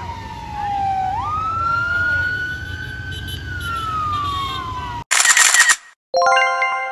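Police escort siren wailing slowly up and down in pitch over the low rumble of passing vehicles. About five seconds in it cuts off. A short swoosh follows, then a chime of bell-like tones from a subscribe-button animation.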